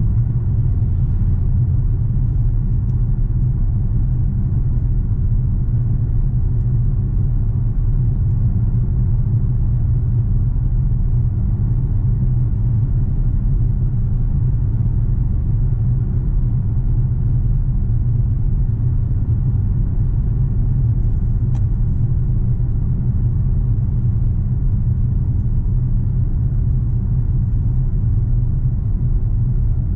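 Steady low drone inside the cabin of a BMW X6 M Competition cruising at constant speed: its 4.4-litre twin-turbo V8 running evenly under light load with road noise, no revving.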